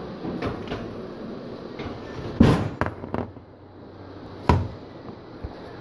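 Kitchen clatter from handling a metal baking pan: a few sharp knocks, the loudest about two and a half seconds in, two lighter ones just after it, and another strong knock about four and a half seconds in.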